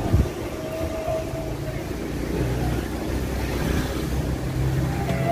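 Car engine running and road noise heard from inside the cabin as the car moves forward, with a short knock at the start.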